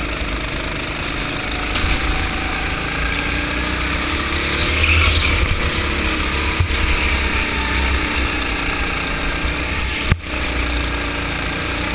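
Go-kart engine running under load, its pitch rising and falling through the corners, over heavy low rumble from vibration on the kart-mounted camera. A short click about ten seconds in.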